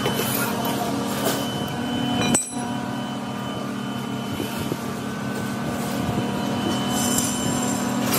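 Steady hum of workshop machinery with scattered metallic clinks and knocks, some ringing briefly; the sound cuts off abruptly for a moment about two and a half seconds in.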